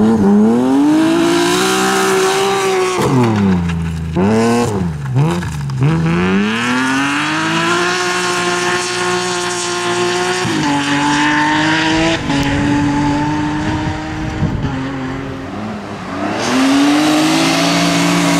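BMW M3 E36 rally car's straight-six engine at full throttle, revs climbing and dropping sharply through gear changes and lifts off the throttle, with tyre noise on gravel. It fades as the car moves away, then near the end another E36's engine comes in, revs rising.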